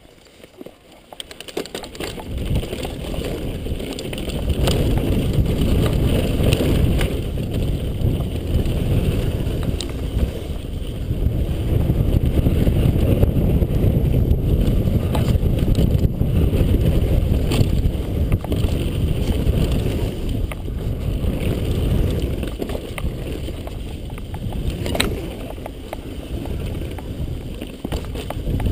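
Mountain bike ride down a dry dirt trail heard from a helmet-mounted camera: heavy wind buffeting on the microphone and tyre rumble on loose dirt, starting quiet and building over the first few seconds as the bike picks up speed, with scattered sharp clicks and knocks from stones and the bike.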